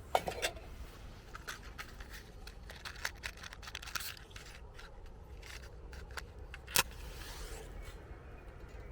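Small metallic clicks and scrapes from a folding Esbit stove and pot being handled and set up to boil water, with one sharp click near the end.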